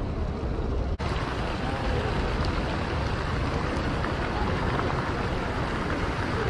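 Plaza fountain splashing: a steady hiss of water jets falling into a basin, over a low rumble. The sound drops out for an instant about a second in.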